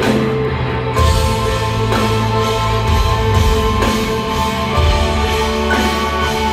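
Live rock band playing through a concert PA, heard from the audience: electric guitars, bass and drum kit, with a beat about once a second. The full band comes in about a second in, filling out the sound.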